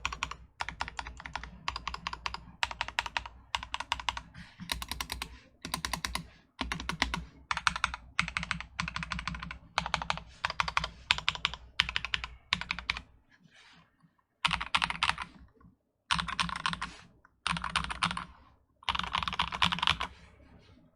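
Typing on a mechanical keyboard with lubed Akko Rose Red linear switches in an acrylic gasket-mount case, with cherry-profile keycaps. Fast key strokes come in short bursts with brief pauses, and the pauses grow longer in the last third.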